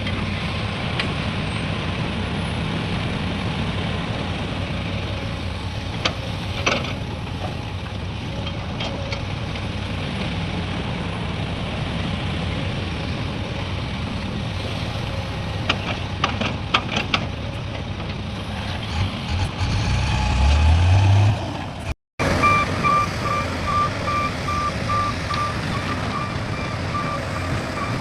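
Heavy diesel machinery engine running steadily with a few metallic clanks, then revving up near the middle. After a brief break, a reversing alarm beeps at an even pace, about two to three beeps a second.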